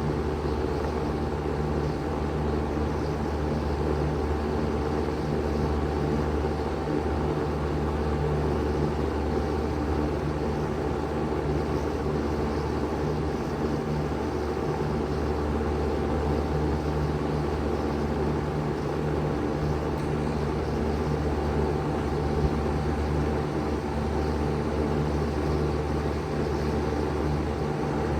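A 2023 Bard 3-ton wall-hung heat pump running steadily in cooling mode, its compressor and fan making a constant low hum over even fan noise, with a faint steady higher whine.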